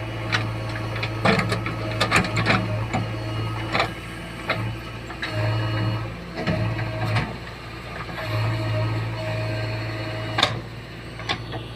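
JCB 3DX backhoe loader's diesel engine running under varying load, its low hum swelling and dropping, with scattered sharp clanks and knocks from the digging arm and bucket.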